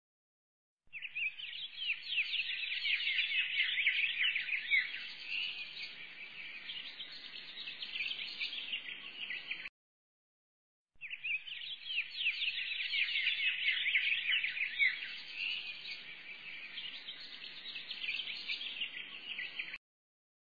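Dense chirping of many birds from a looped background track. It plays in stretches of about nine seconds, each broken off by a second of dead silence before the same stretch starts again.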